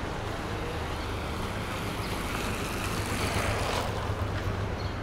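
Street traffic noise with a vehicle passing close by, swelling to its loudest about three to four seconds in, over a steady low rumble.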